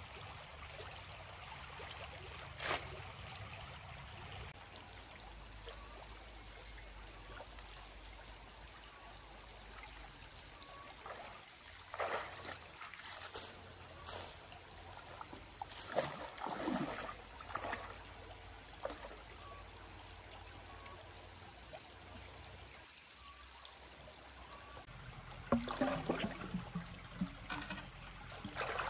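Shallow stream water trickling steadily, with bursts of splashing and sloshing as hands work through the water, a cluster about halfway through and a louder one near the end.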